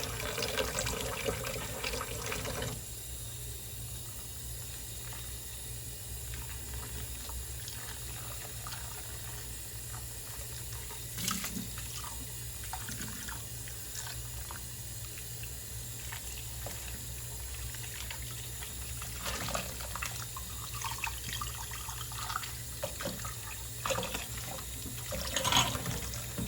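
Kitchen tap running into a sink, shut off about three seconds in. After that a low steady hum remains, with occasional clinks and knocks of dishes being handled, more of them near the end.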